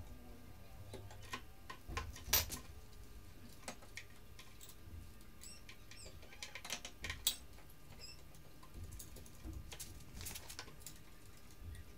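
Scattered light clicks and metallic taps of hand tools and bolts as a motorcycle exhaust is fitted back on. The sharpest tap comes about two seconds in, and another comes just after seven seconds.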